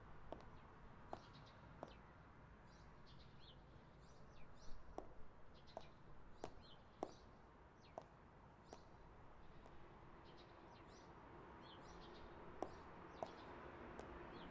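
Faint small birds chirping on and off, with scattered sharp clicks of boot heels striking asphalt.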